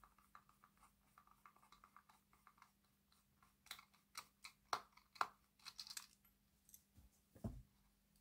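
Small screwdriver turning a tiny screw out of a plastic model railway tender: faint scratchy ticking, then a few sharper clicks about halfway through and a soft low thump near the end.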